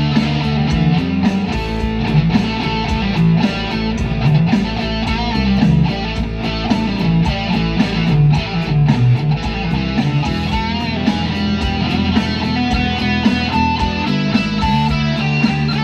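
Instrumental guitar music over a moving bass line, with a steady beat.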